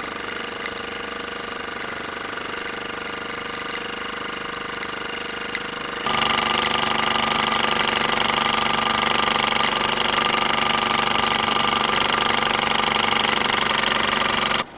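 Luton Bowman PW202 overtype toy steam engine running steadily in live steam, a fast continuous mechanical clatter. It gets noticeably louder about six seconds in and cuts off suddenly near the end.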